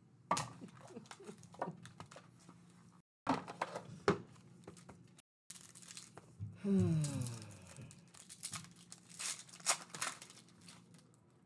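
Foil-wrapped Panini Court Kings trading-card packs being handled and torn open: crinkling and tearing of the wrappers with scattered taps and clicks. The sound cuts out to silence twice for a moment.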